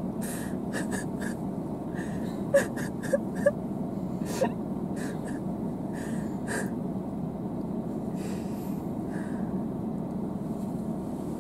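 A girl crying against someone's shoulder: sniffling, gasping breaths and a few short whimpers.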